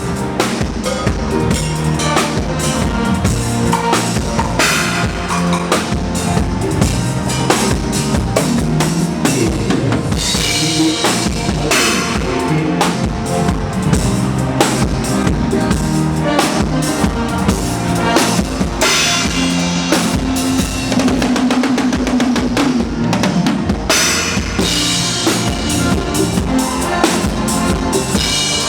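Drum kit played through a live sound system at a soundcheck, a busy groove of bass drum, snare and rimshots with other pitched instruments playing along. Cymbal crashes swell up several times.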